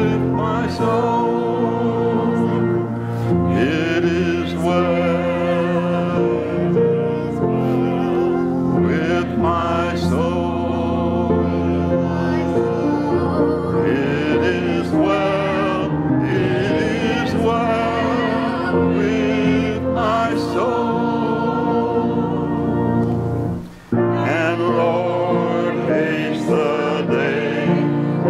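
A congregation singing a hymn together with held instrumental chords underneath. The music breaks off briefly between phrases about three-quarters of the way through, then carries on.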